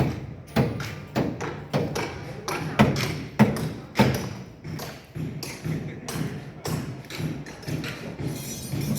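Irregular knocks and thuds from manual building work, sharp and close together for the first four seconds or so, then softer.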